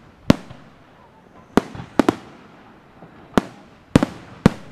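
Aerial fireworks shells bursting in a quick, irregular series of sharp bangs, about eight in under five seconds, some in close pairs, each trailing off briefly.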